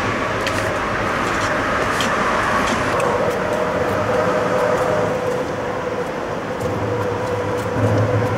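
Steady rumble of vehicles passing over the bridge deck overhead, with a faint steady hum and scattered light clicks.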